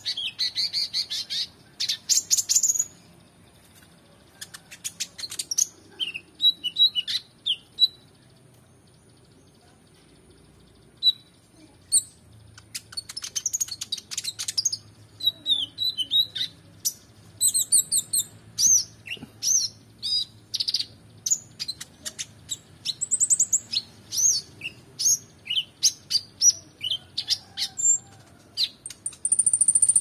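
Male Van Hasselt's sunbird (konin) singing: quick bursts of high-pitched chirps, twitters and trills with mimicked notes of other songbirds, broken by a pause of a few seconds about a third of the way in, then a long busy run of notes.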